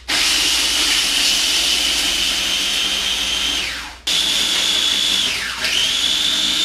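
Small electric food chopper whirring at high speed as it grinds sweet cookies into crumbs. It runs for about four seconds and winds down to a stop, is started again straight away, and near the end briefly slows and speeds back up as it is pulsed.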